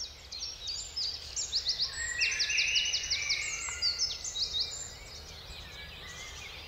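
Great spotted woodpecker nestlings begging for food from the nest hole: an incessant racket of short, high-pitched calls in rapid runs, busiest midway and thinning toward the end.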